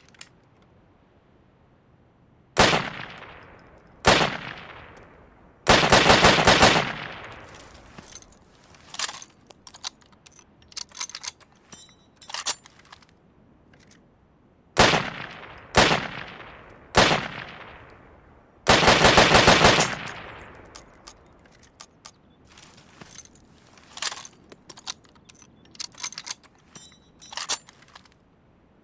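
SKS semi-automatic rifle (7.62×39mm) firing: two single shots, then a fast string of shots lasting about a second and a half. Between strings come quieter clicks and clacks, then three more single shots about a second apart and a second fast string. Each shot trails off in echo.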